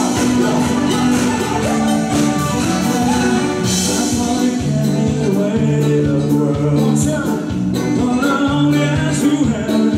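Loud music from a stage performance: a man singing into a microphone over a steady drum beat and bass line.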